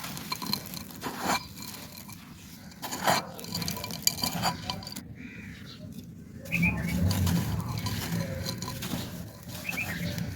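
Dry fired clay pot pieces being crumbled, giving irregular crisp crunches and clinks of hard shards, with a brief pause about halfway through.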